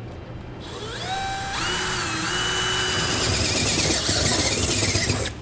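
Cordless drill boring holes through a pickup's steel bed floor: the motor spins up with a rising whine about a second in, runs steadily under load, and stops suddenly near the end.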